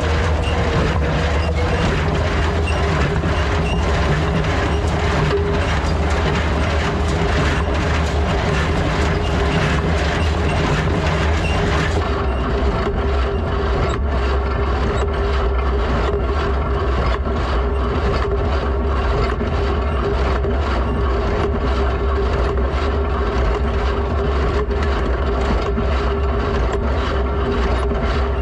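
Ford 3000 tractor running steadily under load while driving a New Holland 273 small square baler, with the baler's mechanism knocking in a regular rhythm over the engine.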